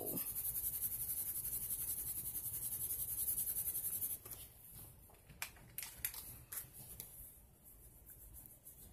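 Watercolour pencil scribbling back and forth on paper in quick, even strokes, a rhythmic scratching that stops about four seconds in. A few light clicks and taps follow.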